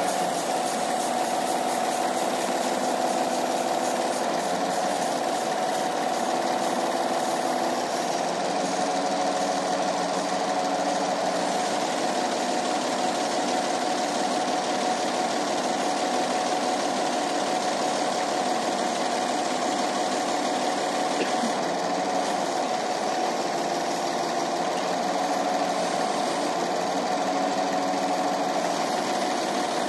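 Truck crane's engine running steadily at a constant speed.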